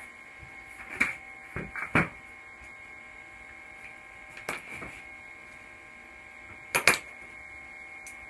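Several sharp clicks and light knocks of small metal parts being picked up and set down on a workbench, the loudest near the end, over a steady electrical hum.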